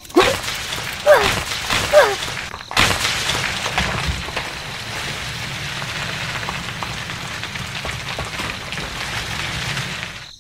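Steady rush of spraying, splashing water with a low hum under it, starting about three seconds in after a few short squeaks and clicks and cutting off suddenly at the end.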